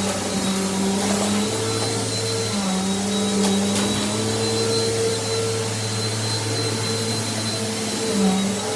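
Mainstays upright vacuum cleaner running, its motor hum stepping slightly up and down in pitch several times as it is worked, with a faint high whine over it.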